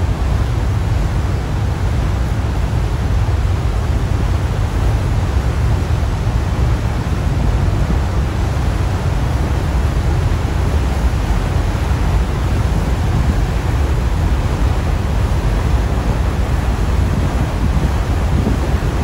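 Steady rush of wind on the microphone over the low rumble of a ferry underway, with the churn of its wake; no change or distinct event throughout.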